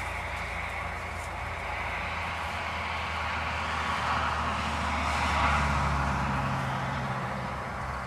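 A vehicle passing at a distance, its steady engine hum and tyre noise building to its loudest about five and a half seconds in, then fading.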